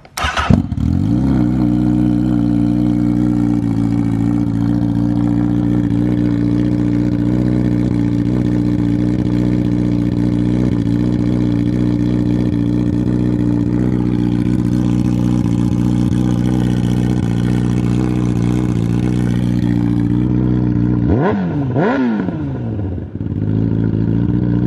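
2017 Honda CBR1000RR inline-four starting straight-piped, with the stock muffler removed, then idling steadily and way too loud. Near the end a quick blip of the throttle rises and falls, and the engine cuts off at the very end.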